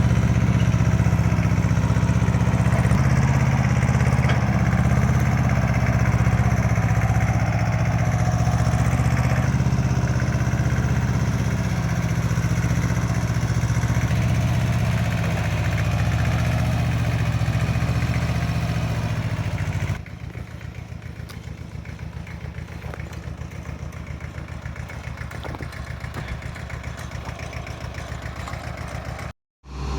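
Vehicle engine running steadily. About two-thirds of the way through it changes abruptly to a quieter, evenly pulsing run, and there is a split-second dropout just before the end.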